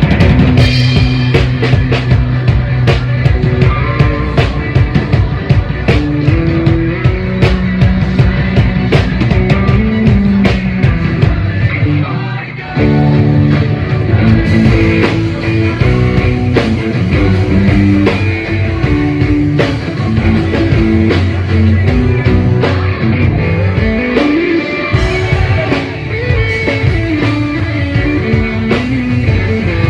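Live rock band playing a number during a sound check, with drum kit and guitar. The band breaks off for a moment about halfway through, then comes back in.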